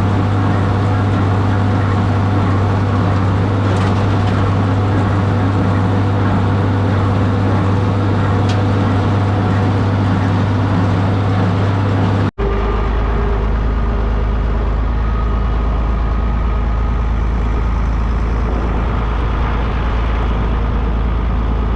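Tractor engine running steadily and loudly. About halfway through there is an abrupt cut to a deeper, lower engine note.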